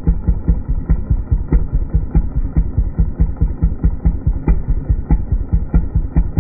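An engine idling with an even, rapid low thumping, about seven beats a second.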